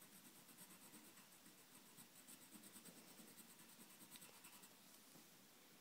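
Faint scratching of a pen on paper in short quick strokes, filling in a small shape.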